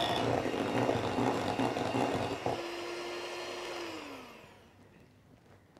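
Handheld electric mixer with twin beaters churning thick red velvet brownie batter in a glass bowl as flour is blended in. The churning drops away about two and a half seconds in, leaving the motor's steady whine, which falls in pitch as the mixer winds down about four seconds in.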